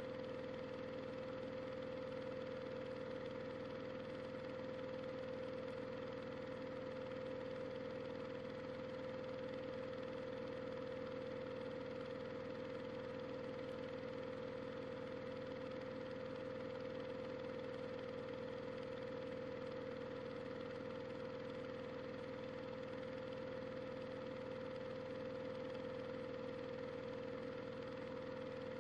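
Washing machine running, heard from inside: a steady mechanical hum with a constant mid-pitched whine that does not change.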